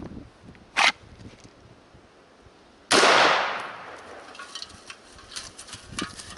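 A short, sharp crack about a second in, then a loud gunshot about three seconds in that rings out and dies away over a second or so.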